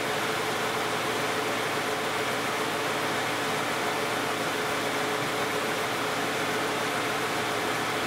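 2010 Toyota Camry's 2GR-FE 3.5-litre V6 idling steadily while warming up after a cold start, an even hum with a constant faint tone.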